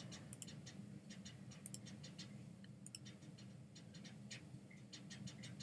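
Faint, irregular small clicks, several a second, over a low steady hum: a computer mouse and keyboard being worked.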